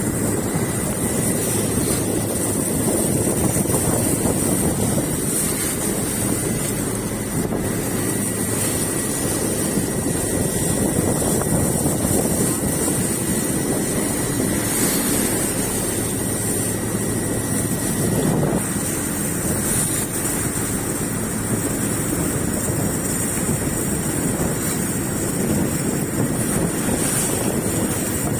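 Fishing boat's engine running steadily underway, heavily mixed with wind buffeting the microphone.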